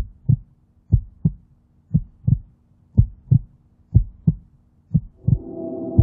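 Heartbeat sound effect in an intro soundtrack: deep double thumps, lub-dub, about once a second. A held chord swells in about five seconds in and carries on under the beats.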